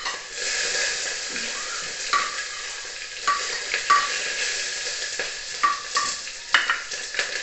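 Onion frying in hot oil in a pan, a steady sizzle, while it is stirred with a utensil that clinks and scrapes against the pan many times.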